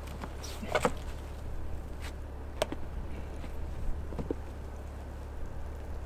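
A few knocks and scuffs as a person climbs out through a snowed-in van's window, against the van body and the snow, over a steady low rumble.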